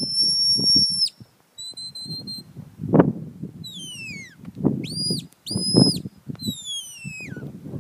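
Sheepdog handler's whistle commands: a long level whistle, a shorter level one, a falling whistle, two short rise-and-fall blasts, then another long falling whistle. Bursts of low rumbling noise come and go underneath.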